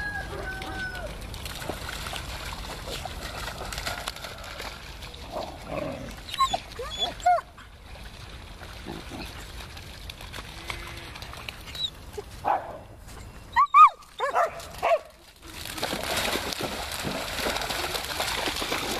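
Dogs giving short barks and yelps in two clusters, about six seconds in and again around twelve to fifteen seconds in. Near the end, water splashes as dogs run through a flooded field.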